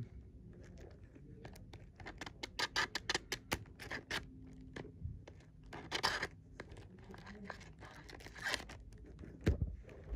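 Hands handling a CD's plastic packaging: a quick run of small clicks and scratches, then rustling, and a dull thump near the end.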